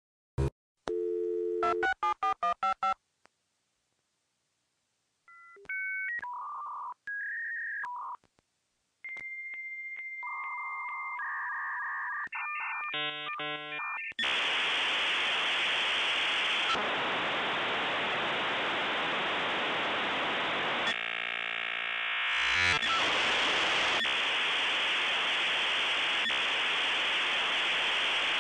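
Dial-up modem connecting over a phone line. A quick run of dialing beeps comes first, then steady answer tones and shifting handshake tones, and from about halfway on a long steady hiss of the data negotiation, broken once by a rapid warble.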